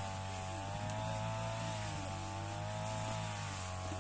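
A small motor running steadily, its pitch wavering slightly up and down.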